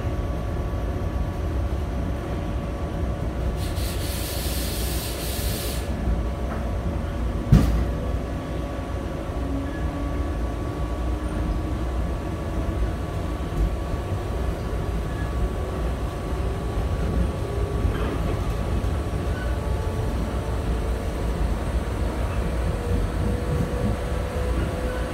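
Inside a JR 123 series single-car electric train pulling away: a steady running rumble with a motor whine that rises slowly in pitch as the train gathers speed. A burst of hiss lasts about two seconds some four seconds in, and a single sharp knock comes near eight seconds.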